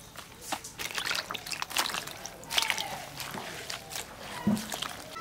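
Irregular wet sloshing and dripping, as of water being stirred and splashed by hand, with a soft thud about four and a half seconds in.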